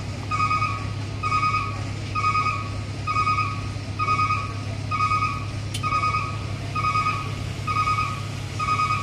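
Electronic warning beeper sounding at an even pace, about one short beep a second, ten beeps in all, over a steady low engine hum.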